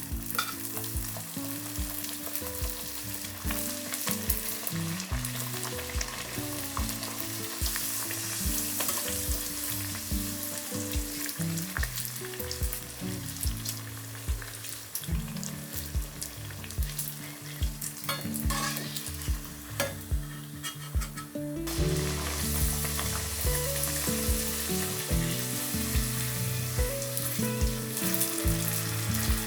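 Food frying in hot oil in a pan: a steady sizzle that thins a little about halfway through and comes back louder about three quarters of the way in.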